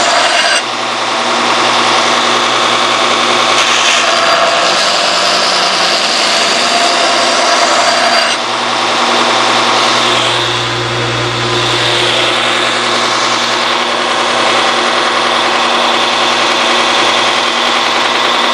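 Belt grinder running with a coarse 40-grit belt, grinding forge scale off steel and profiling a knife blade. The grinding noise is continuous over a steady motor hum, changing tone a couple of times as the steel is pressed and moved on the belt.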